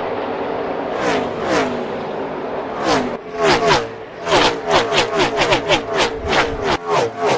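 NASCAR Gen 6 V8 stock cars passing at speed one after another, each engine note dropping in pitch as it goes by. A few spaced passes at first, then from about three seconds in a tight train of cars, two or three a second.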